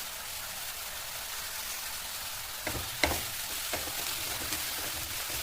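Sliced onions and curry leaves frying in hot coconut oil in a pan, a steady sizzle, with a few short knocks from stirring about three seconds in.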